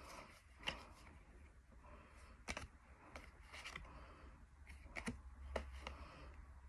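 Faint handling of Pokémon trading cards as they are drawn one at a time from a hand: soft rustling and sliding, with a few short sharp clicks spaced out by a second or so, over a steady low hum.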